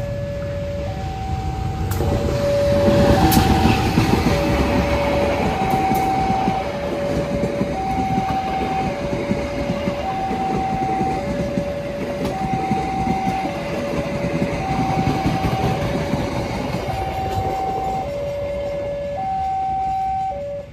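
The Penataran local train passing close by with a steady rumble and clatter of wheels on the rails, loudest about three seconds in. Over it, a level-crossing warning alarm sounds a two-tone signal that steps between a higher and a lower pitch about once a second.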